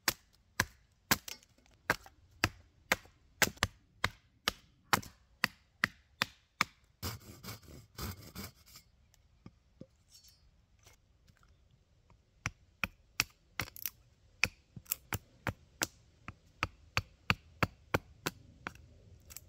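Axe chopping a wild-cherry spoon blank on a stump block, steady sharp strikes about two a second. About seven seconds in, a short rasping stretch, then a pause. From about twelve seconds in, lighter, quicker chops resume.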